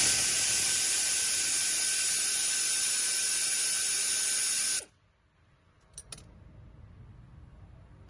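Steady pressurised hiss of a spray for about five seconds, cutting off abruptly, followed about a second later by two light clicks in quick succession.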